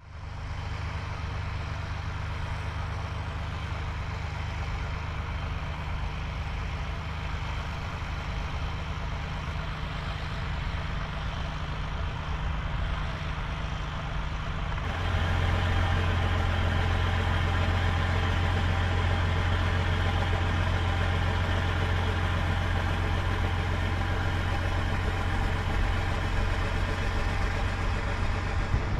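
Diesel engine of a Volvo BM tractor running steadily while ploughing. About halfway through the sound switches abruptly to a louder, deeper engine note.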